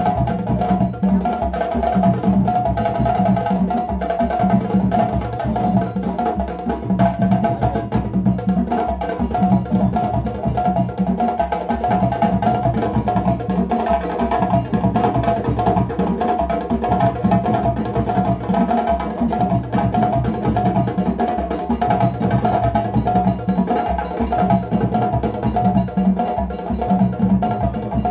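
Ensemble of djembe hand drums playing together: a fast, dense, continuous rhythm with a pattern that keeps repeating.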